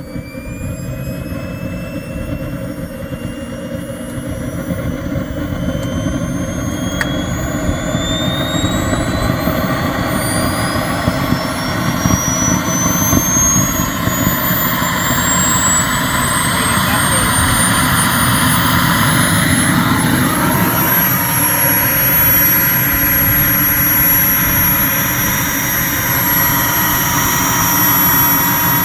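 KingTech K102 model jet turbine spooling up on its first start: a high whine climbs steadily for about twenty seconds and then holds level, over a rushing exhaust that grows louder.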